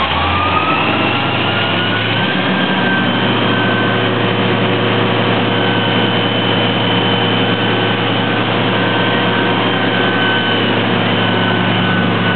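Airport crash tender's engine running hard to drive its fire pump while the roof boom monitor throws a water jet: a whine that climbs over the first second or so and then holds steady over a deep drone and a steady rushing noise.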